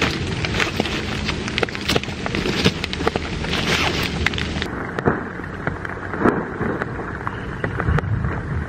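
Steady rain with scattered drop hits, and the rustle of a nylon tent and its stuff sack being unpacked and unrolled on a plastic groundsheet. The high hiss drops away about halfway through.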